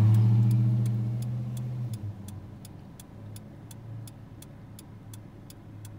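Car turn-signal indicator clicking at a steady pace of about three clicks a second over a faint low engine hum. A louder low steady hum fades out over the first two seconds.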